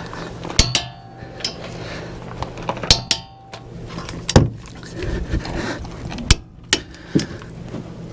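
Irregular metallic clinks and knocks as a socket and long torque wrench are fitted against the steel front hub and steering knuckle, about ten separate strikes, one ringing briefly about three seconds in. A faint steady low hum runs underneath.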